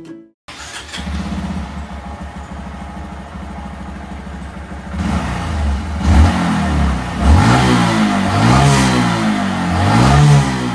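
Honda Monkey 125's single-cylinder four-stroke engine idling, then revved in several blips from about halfway through, the pitch rising and falling with each one.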